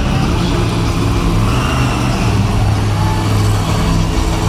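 Max-D monster truck's supercharged V8 engine running steadily at moderate revs, a deep, even engine note.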